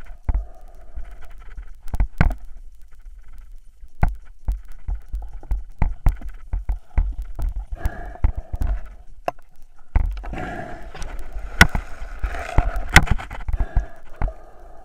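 Muffled underwater sound picked up through an action-camera housing while diving with a speargun: irregular sharp clicks and knocks of gear and handling over a dull low rumble. About ten seconds in it turns busier and noisier, with dense clicking and rustling for a few seconds.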